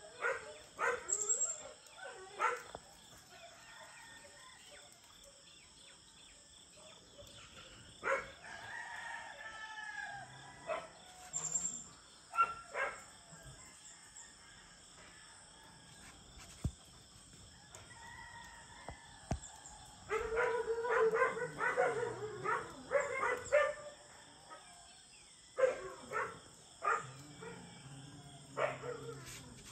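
Dogs barking on and off, with a dense run of quick barks about two-thirds of the way through, and a rooster crowing, over a steady high hum of insects.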